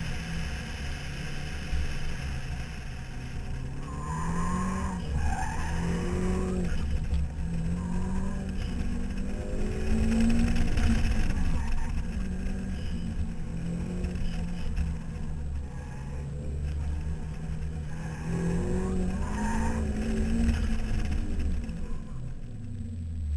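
A car's engine is driven hard through an autocross course, its pitch climbing and falling again and again as the driver accelerates and lifts between cones. Tyres squeal briefly a few times. Wind rumbles on the outside-mounted microphone, and the engine winds down near the end as the car slows.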